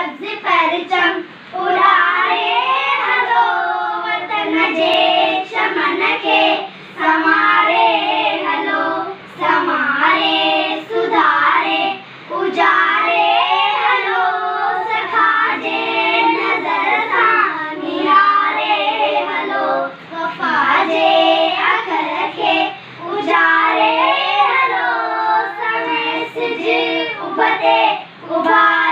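A group of young girls singing a song together in short phrases, with brief breaks between phrases.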